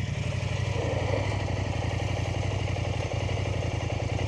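KTM 890 Adventure R's parallel-twin engine idling steadily.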